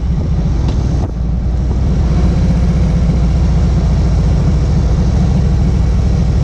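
Harley-Davidson V-twin motorcycle engine and exhaust running steadily at highway speed, heard from the rider's seat with wind and road rush over it. The engine eases off briefly about a second in.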